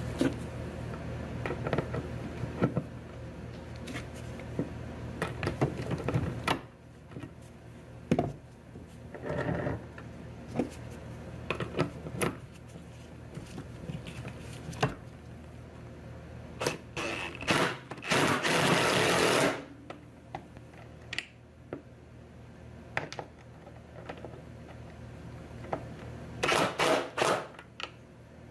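DeWalt 20V cordless driver spinning a 1/2-inch socket to run down and tighten the nuts on a bench vise's mounting bolts. It runs in spurts with short clicks and knocks between them; the longest, loudest run comes about two-thirds of the way through, and there is a shorter one near the end.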